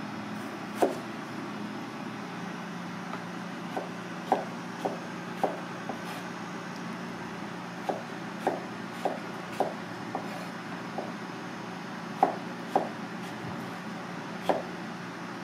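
Kitchen knife slicing a green vegetable on a plastic cutting board: about sixteen crisp knocks of the blade hitting the board, coming in short uneven runs, over a steady low hum.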